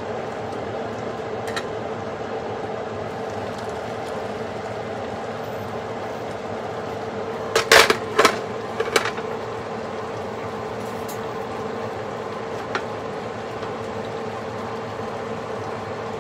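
A steady mechanical hum with a faint level tone, and a quick run of sharp clinks, a utensil knocking on a cooking pot, about eight seconds in.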